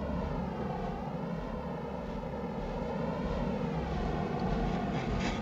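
A steady mechanical roar whose tone slowly wavers up and down.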